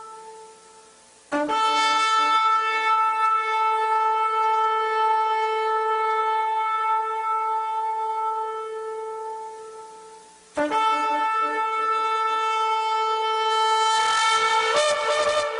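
Shofar (ram's horn) blown in two long, steady blasts of about nine and five seconds, after the tail of an earlier blast fades out. Near the end the second blast turns harsher and jumps up to a higher note.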